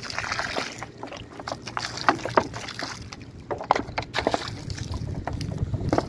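Water splashed from a crumpled plastic bottle onto dry dirt and stones, heard as a run of short, uneven splashes and crackles.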